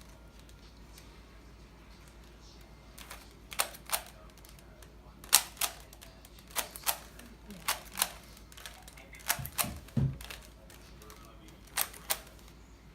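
3x3 Rubik's Cube's plastic layers clicking as they are twisted during a solve: sharp clicks, mostly in pairs about a third of a second apart, with pauses of a second or more between them.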